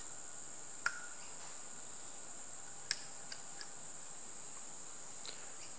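A few light metallic clicks as a hooked pick works the retainer cup out of a Perkins engine oil pump's relief valve, two sharp ones about a second and three seconds in, the first with a short ring, then a couple of faint ticks. A steady high-pitched background whine runs underneath.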